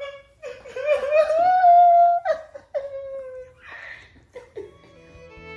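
A woman crying and wailing: long drawn-out cries that rise and then fall in pitch, with a breathy sob about four seconds in. Soft violin music comes in near the end.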